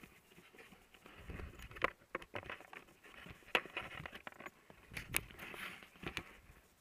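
Mountain bike rolling over a gravel road: irregular clicks and rattles from the bike over the hiss of tyres on loose gravel.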